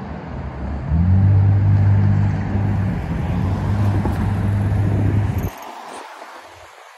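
Road traffic: cars driving past close by, with a low steady hum that starts about a second in and cuts off suddenly about five and a half seconds in.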